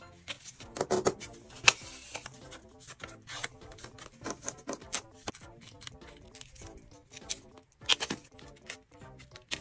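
Paper being handled at close range: scissors snip card near the start, then short rustles, taps and rubs as cut paper circles and a paper strip are picked up and wrapped around each other. Soft background music plays underneath.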